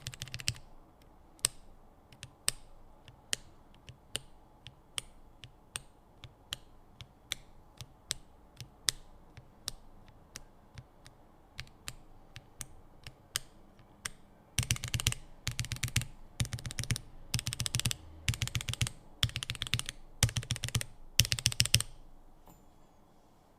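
Lubed mechanical key switches typed on a GMMK Pro keyboard with an aluminium plate and no case foam. Single key presses come a little more than once a second, then about fifteen seconds in there is a run of short bursts of fast typing.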